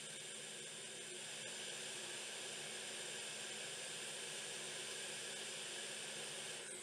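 Hot air rework station blowing a steady hiss of air onto a replacement chip, reflowing the solder beneath it; the hiss dips briefly right at the end.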